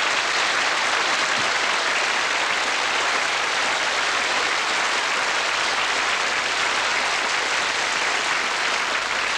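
Studio audience applauding, steady clapping throughout.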